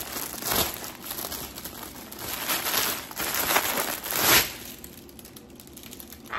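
Clear plastic packaging crinkling and rustling as it is handled and opened, in several bursts, the loudest just over four seconds in, then quieter near the end.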